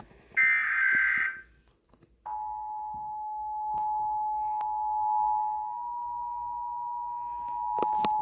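Weather radio sounding an Emergency Alert System alert. A short, buzzy SAME digital header burst plays, there is a brief silence, and about two seconds in the steady two-tone EAS attention signal (853 and 960 Hz together) begins and holds.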